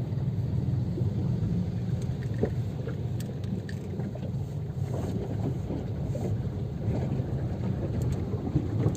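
Steady low rumble of a car driving through a flooded street, heard from inside the cabin.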